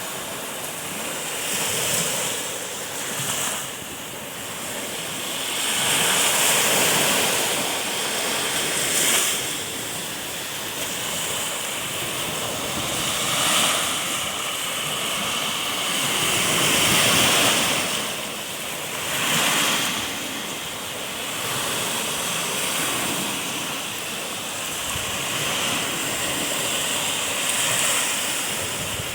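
Black Sea surf breaking and washing on the shore, swelling and ebbing every few seconds, with wind on the microphone.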